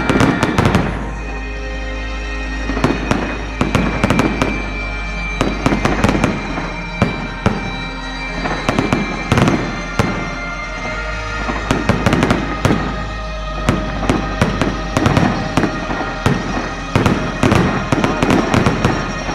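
Fireworks display: shells bursting in a rapid, uneven series of sharp bangs and crackles that starts suddenly at the outset, with music playing underneath.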